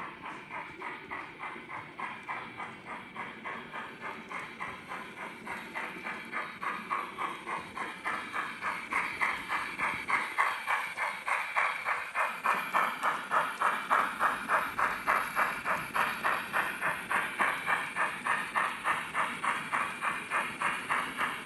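Steam locomotive exhaust chuffing at an even rhythm of about three beats a second, played by the ESU LokSound V4 sound decoder in a Bachmann OO-gauge GWR 45xx 2-6-2 Prairie Tank. It grows louder about halfway through.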